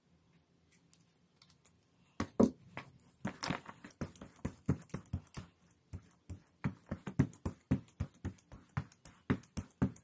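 Rubber brayer rolled back and forth through wet acrylic paint on a gel printing plate, a quick run of sticky clicking strokes, several a second, starting about two seconds in.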